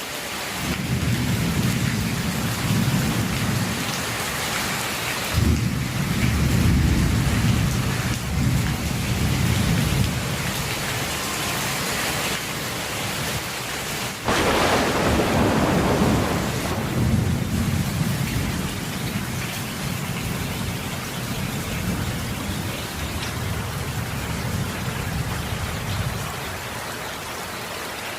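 Steady rain falling with long peals of thunder rumbling over it. The thunder swells suddenly about five seconds in, gives a sharp close crack around fourteen seconds, and dies away near the end while the rain keeps on.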